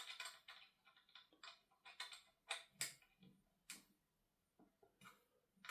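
About a dozen light, irregular clicks and taps of small metal camera-mount parts being handled: a magic arm, its crab clamp and an Allen key.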